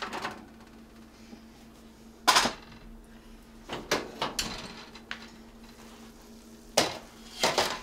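Metal skillet being taken out of the oven and set down on an electric coil stovetop, with a pan lid handled: a few sharp metal clanks and knocks, the loudest about two seconds in and two more near the end, over a faint steady low hum.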